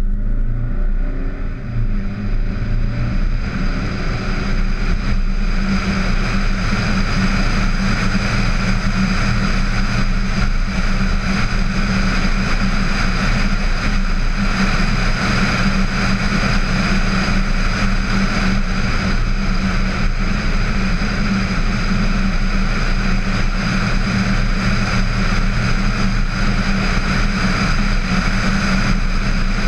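VW Tiguan on the move, heard through a GoPro mounted on its hood: engine and wind-and-road noise climbing as the car picks up speed over the first few seconds, then a steady drone at cruising speed.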